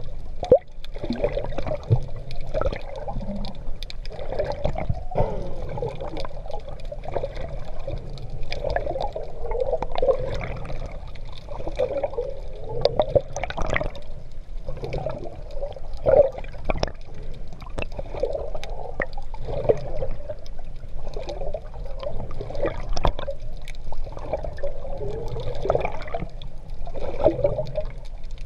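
Sea water sloshing and gurgling around a GoPro in its waterproof housing during an open-sea swim. The sound is muffled, with a steady churn broken by many small irregular splashes and bubbling bursts.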